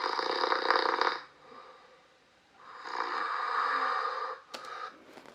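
A man's snoring played back from an overnight recording made without the mouth patch: two sharp, fairly loud snores about two and a half seconds apart, each one to two seconds long.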